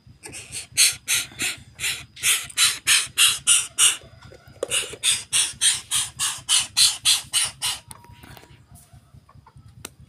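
A bird calling in a fast run of short, harsh, noisy notes, about four a second, with a brief break about four seconds in, stopping near the eighth second.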